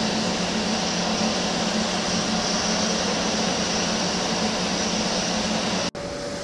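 Fiber laser marking machine running while it marks aluminium: a steady fan-like hum with a low tone. Near the end it cuts off for an instant, and a slightly quieter steady hum with a single higher tone follows.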